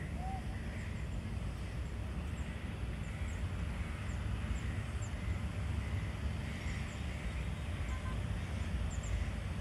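Outdoor ambience: a steady low rumble with a faint hiss above it, and a few faint, short, high chirps scattered through.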